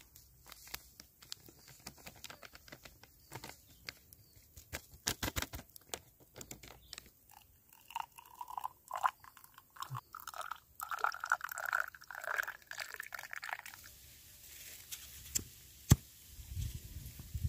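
Instant coffee powder shaken from a paper sachet into a bamboo cup, with light crinkling and ticking. About eight seconds in, water pours into the bamboo cup for about six seconds, its gurgle rising in pitch as the cup fills. One sharp tap comes near the end.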